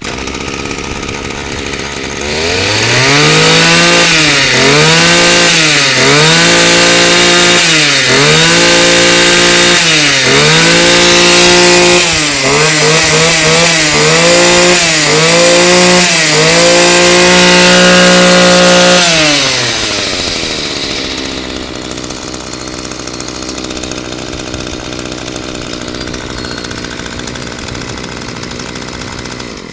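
Echo 24 cc two-stroke brush cutter engine running at idle, then revved in about eight quick throttle blips, held at full throttle for a couple of seconds, dropped back to a steady idle, and shut off near the end.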